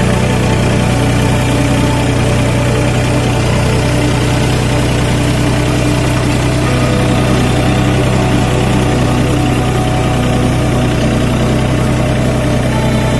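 Tractor engine running steadily with an even, unbroken drone.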